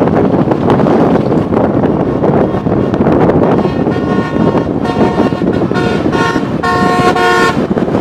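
Vehicle horn honking in a series of about six short blasts through the second half, the last ones loudest, over steady wind rush on the microphone of a moving motorbike.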